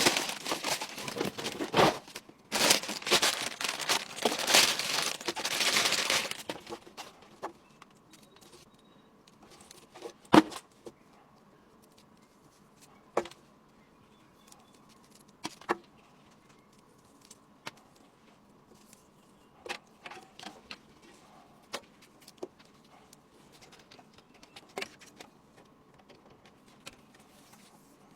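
Rustling and crinkling of packaging as PC parts are handled, for about six seconds, then sparse light clicks and taps of parts being set down and fitted.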